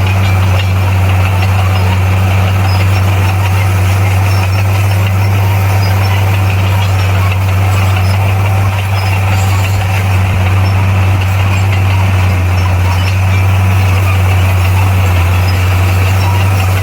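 Bulldozer's diesel engine running at a steady, even speed: a loud, constant low drone with no revving.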